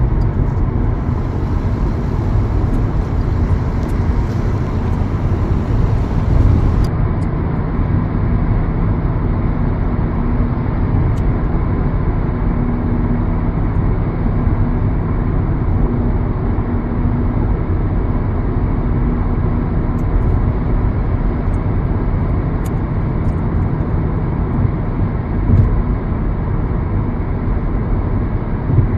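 Steady rumble of a motor vehicle on the move: engine hum under continuous road noise.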